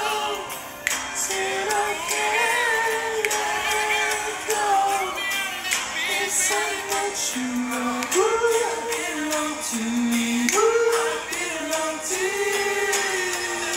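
A pop song playing, with a sung melody over a steady beat.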